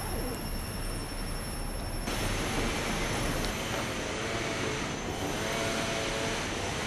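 Steady outdoor background noise, an even wash of sound with a faint high steady tone on top, changing character at a cut about two seconds in.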